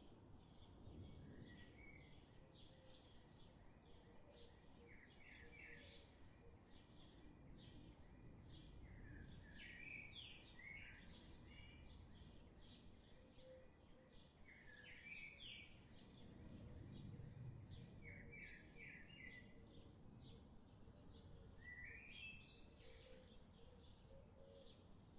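Faint birdsong from several small birds, many quick chirps and short repeated trills, over a low background rumble that swells now and then.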